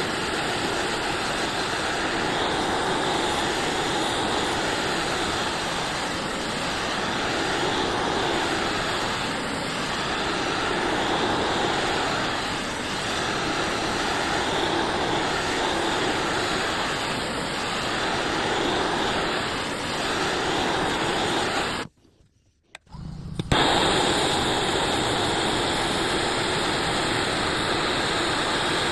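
Blowtorch flame hissing steadily as it chars a wooden handle. It drops away to near silence for about a second and a half near the end, then resumes.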